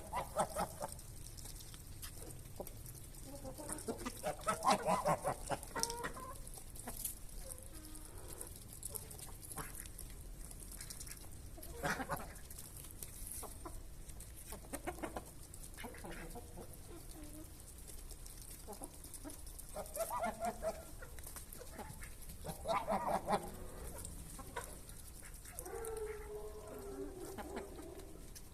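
Farmyard chickens clucking in several short bouts of quick repeated clucks, with a lower drawn-out call near the end.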